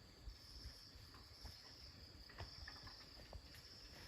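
Faint, steady high-pitched insect trill that dips briefly now and then, with a few soft clicks.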